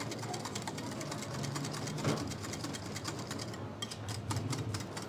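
Wire balloon whisk beating thick yogurt and cream in a bowl by hand: a fast, rhythmic run of clicks and scrapes as the wires strike the bowl.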